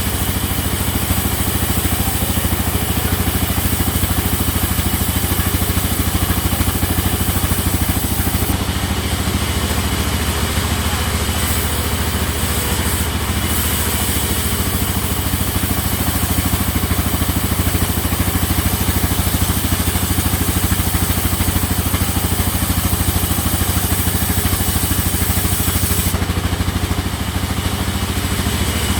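Sawmill machinery running with a steady, unchanging engine-like drone and low hum.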